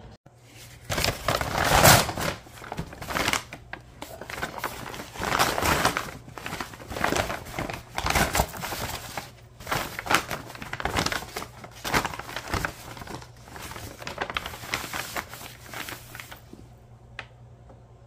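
Sheets of brown kraft paper crinkling and rustling in irregular bursts as they are handled and spread out flat, starting about a second in and stopping shortly before the end, followed by one faint click.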